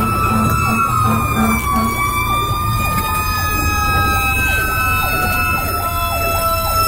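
Fire engine sirens heard from inside the cab: a slow wail gliding up and down, with a faster yelping siren beside it, over the steady rumble of the truck's engine. A low pulsing tone sounds for the first two seconds.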